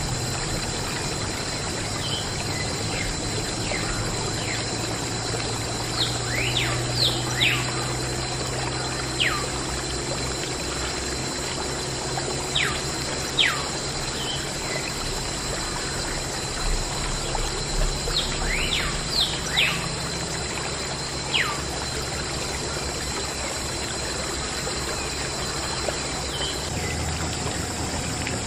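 Water pouring and trickling steadily in a thin stream, with birds chirping: short falling whistles that come in two flurries, about six seconds in and again around eighteen seconds in.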